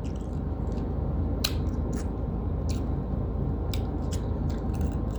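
Eating sounds: about half a dozen short sharp mouth clicks and smacks over a steady low hum.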